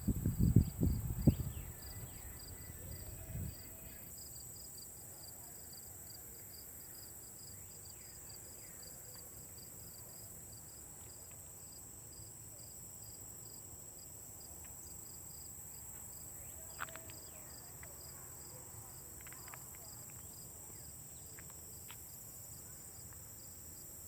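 Crickets chirping in a steady, even pulse of about two to three chirps a second, over a steady high-pitched insect trill. Low rumbling thumps sound in the first few seconds, and a few short chirps from another creature come in past the middle.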